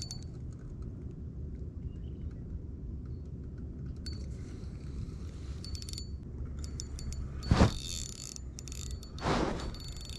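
Spinning fishing reel being worked against a large fish on light line, ticking and clicking mechanically over a steady low rumble, with two louder thumps about a second and a half apart near the end.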